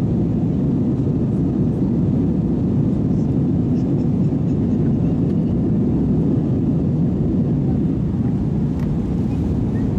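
Steady low roar of an Airbus A320's engines and rushing air, heard inside the passenger cabin in flight.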